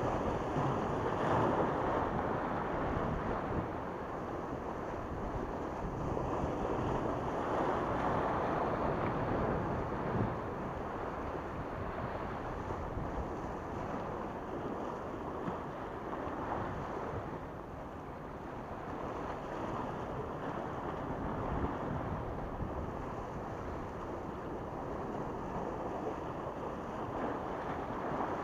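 Small waves washing and splashing against a rocky breakwater, swelling and easing every several seconds, with wind rumbling on the microphone.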